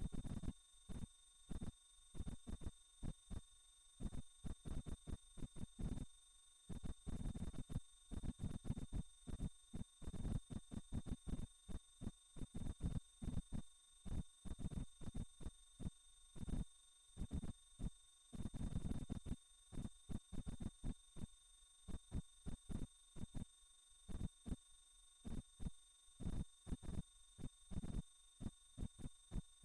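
A synthesized sine-wave 'healing frequency' tone: a steady, very high-pitched single tone that pulses evenly in loudness several times a second, with faint low throbbing beneath it.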